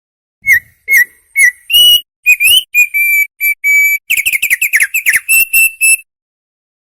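Opior, a white-eye songbird, singing a string of high notes: a few short notes spaced apart, then a quicker run of notes, some sliding in pitch, stopping about six seconds in.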